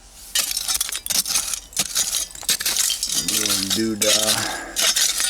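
Glass bottles and broken glass and crockery shards clinking and rattling against each other in a rapid, irregular series, as they are dug through and handled in a bottle dump.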